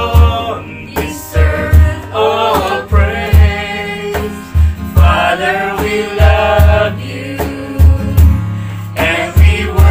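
A small mixed group of voices singing a slow worship song together, accompanied by a strummed acoustic guitar, with a low pulse on the beat.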